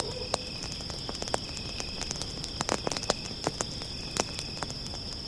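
Campfire crackling with irregular sharp pops, over a steady high-pitched chirr of insects.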